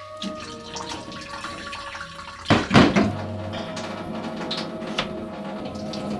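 Water running and splashing, as from a tap or hose, with a louder rush of water about two and a half seconds in.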